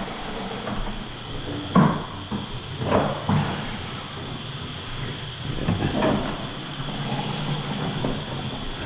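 Several separate knocks and clunks, about four, over a steady background hum.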